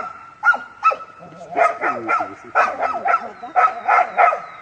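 Dog barking rapidly and repeatedly at a brown bear it is sparring with: about a dozen sharp barks, some in quick runs of two or three.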